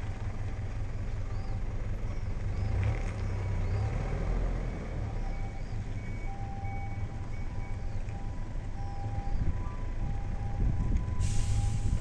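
JR Central 313 series electric train easing slowly along the station platform: a low rumble with a steady electrical hum. About eleven seconds in, a sudden hiss of air starts.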